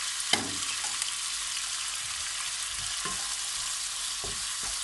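Chopped bacon sizzling steadily in hot oil in a frying pan, while a wooden spatula stirs it and knocks against the pan, most sharply about a third of a second in.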